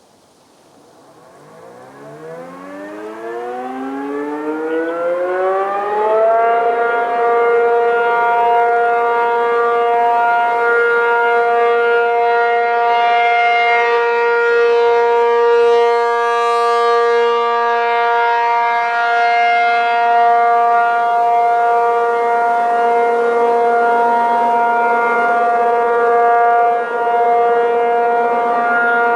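ACA P-50 electromechanical civil defense siren winding up from silence, its pitch rising over about five seconds. It then holds one steady tone, the alert signal.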